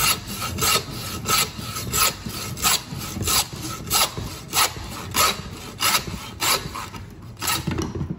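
Hacksaw cutting through a deer's skull bone in quick back-and-forth strokes, about three a second, to take off the antlered skull plate. The strokes stop near the end as the plate comes free.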